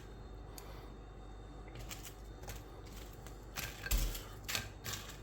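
Scattered light taps and clicks of a utensil and food against a plate as potato slices are set out, with one louder knock about four seconds in.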